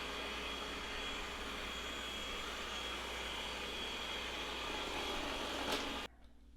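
Yeedi vac 2 Pro robot vacuum running, its suction fan giving a steady rushing noise with a thin high whine; it stops abruptly about six seconds in.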